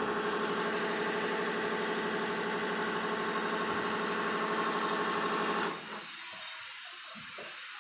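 Servo-driven knitwear linking machine running steadily at its standard speed, a fast, even mechanical whirr that stops abruptly about six seconds in.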